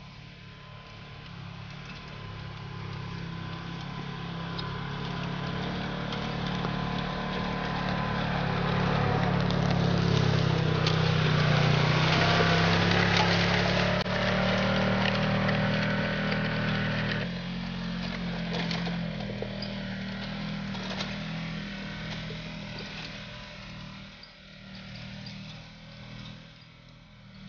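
Polaris RZR 900 side-by-side's twin-cylinder engine running steadily as it pulls a disc harrow over tilled soil, growing louder as it approaches, passing closest about halfway through, then fading as it drives away. Clanking and rattling from the harrow while it is near.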